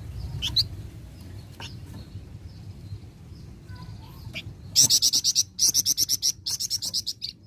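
Flamboyan songbird singing: a few separate high chirps, then about halfway through a fast, loud run of high, evenly repeated notes, roughly ten a second, over a low steady hum.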